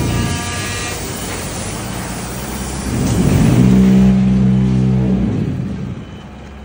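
Forklift engine revving up about three seconds in and running hard for about two seconds while carrying a strapped stack of concrete blocks, then fading away near the end.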